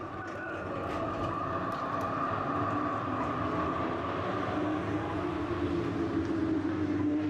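A tram running, a steady whine over wheel and track noise, growing louder over the first couple of seconds.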